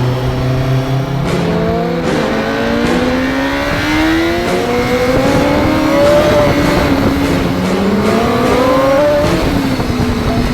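Honda superbike engine accelerating hard through the gears. The pitch climbs and then drops back at each upshift, several times over.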